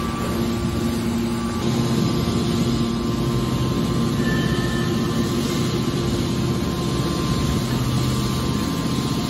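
Scrap steel baling machine running, a steady mechanical drone with a low hum.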